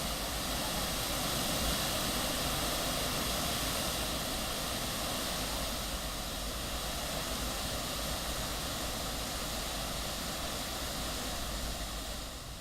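Floodwater rushing through the open spillway gates of the Kinnerasani dam: a steady, heavy rush of water with no let-up.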